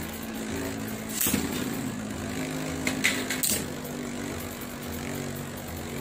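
Beyblade spinning tops whirring steadily on a plastic stadium floor, with sharp clicks of tops striking each other or the stadium wall about a second in and twice around three seconds.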